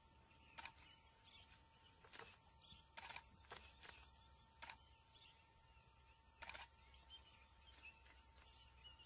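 Near silence with a faint steady hum, broken by about seven soft, irregularly spaced clicks, a couple of them doubled.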